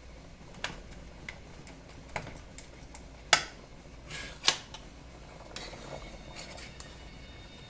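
A few scattered sharp clicks and knocks of a stainless saucepan and controls being handled on a glass-top electric stove. The loudest knock comes a little over three seconds in and another about a second later, over a faint steady hum.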